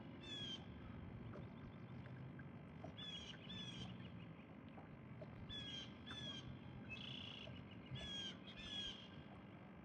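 Faint bird calls: short, high phrases of quick falling notes, repeated every second or so.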